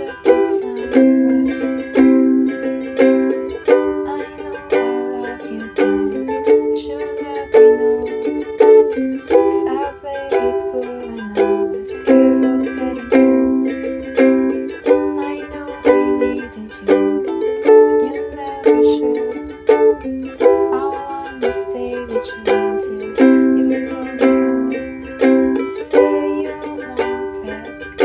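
Ukulele strummed steadily in a down, up-down-up-down, up-down-up-down, down-up pattern through a repeating G, D, E minor, C chord progression.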